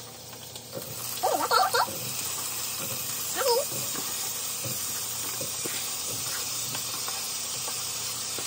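Chopped bell peppers and onions sizzling as they drop into hot oil in a steel pot: a steady frying hiss that swells about a second or two in, as the vegetables go in, and then holds.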